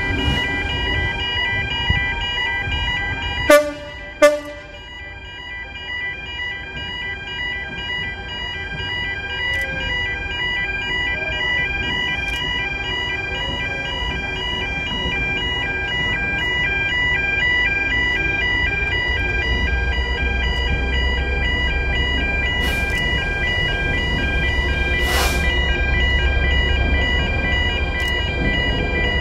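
Level crossing warning alarm sounding continuously, several high tones pulsing on and off. Two sharp clicks about a second apart near the start, and from about two-thirds of the way through the low rumble of an approaching Class 66 diesel locomotive grows under the alarm.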